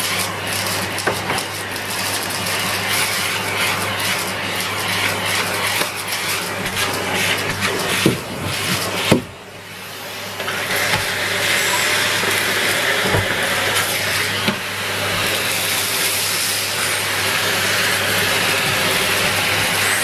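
Numatic Henry cylinder vacuum cleaner running steadily with a constant hum while its floor nozzle is worked over carpet. A couple of sharp knocks come about eight and nine seconds in, after which the sound briefly drops and then builds back up.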